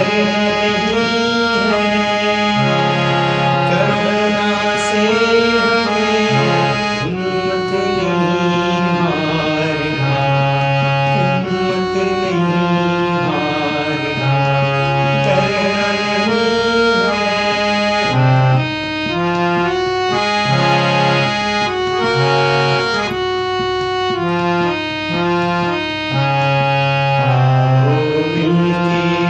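Instrumental music: a free-reed keyboard instrument plays a melody in held, stepped notes over a steady low drone, with no singing.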